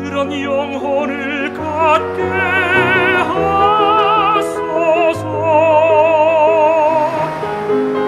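Tenor singing a Korean art song in full operatic voice with wide vibrato, holding long notes over instrumental accompaniment.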